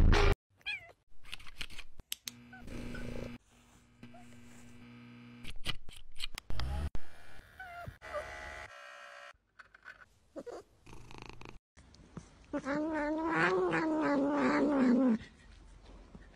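Domestic cat giving one long, drawn-out meow of about two and a half seconds near the end, its pitch rising and falling. Before it comes a string of short, varied sounds broken by abrupt cuts and silent gaps.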